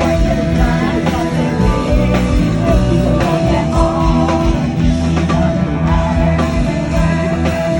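Live rock band playing during a sound check: electric guitar over bass and a steady drum beat.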